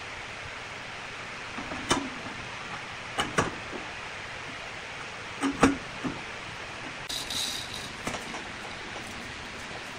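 A few sharp knocks and clunks over a steady hiss: one about two seconds in, two close together a little after three seconds, the loudest just after five and a half seconds. A brief high scraping follows about seven seconds in.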